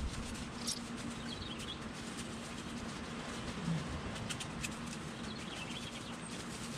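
Small birds chirping a few times over a steady low hum, with a few short clicks in between.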